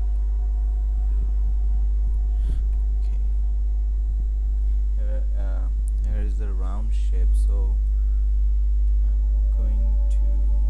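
Steady, strong low electrical hum of the mains type, unchanging throughout. Faint wavering pitched sounds, like a distant voice, come and go about five to eight seconds in.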